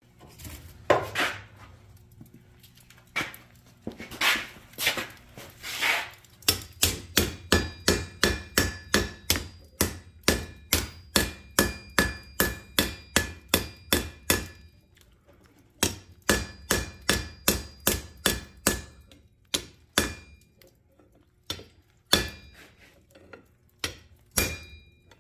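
Hand hammer forging hot metal on an antique swage block, each blow giving a sharp metallic ring. A few heavy, irregular blows come first, then steady runs of about three blows a second with a short pause between them, then a few scattered blows near the end.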